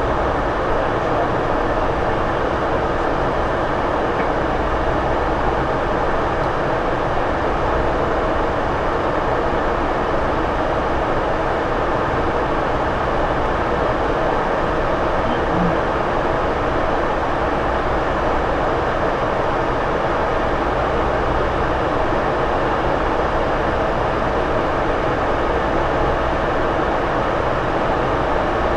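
Steady rushing noise of a Boeing 747-400 in flight, heard from the cockpit: airflow and engine noise at an even level throughout.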